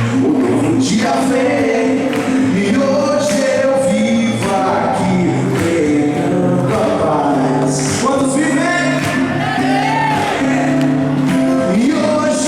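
Gospel worship music played live by a band, with singing voices over held chords and drums.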